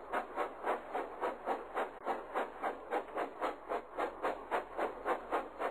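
Steam locomotive chuffing at a steady pace, with quick, even puffs about four to five a second.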